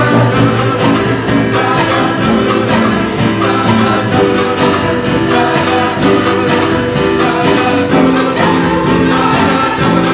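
Live music: a large choir singing with guitar accompaniment, over a percussion band's steady drum beat.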